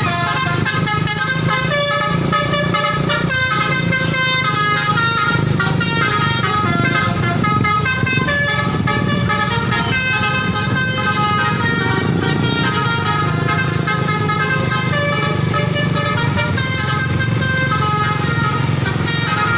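Bus telolet horn (a Basuri multi-tone air horn) playing a fast melody of short changing notes without a break. Under it is a steady low hum from the bus engine.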